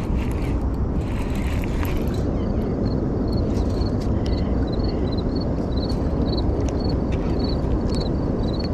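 Steady low rushing of wind and river water on the microphone. A faint high chirp repeats two or three times a second from about two seconds in, with a few faint clicks.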